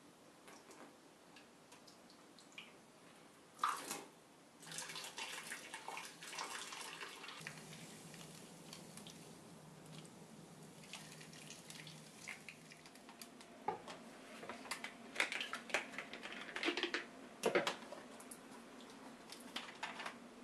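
Water poured from an electric kettle down a sink drain and over sodium percarbonate powder on a metal floor drain, splashing and trickling. A sharp knock comes near the start, and there are several sharp drips and clinks in the second half.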